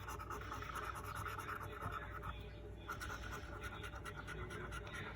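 Scratching the coating off a scratch card, a steady rasping scrape with a brief pause about two and a half seconds in.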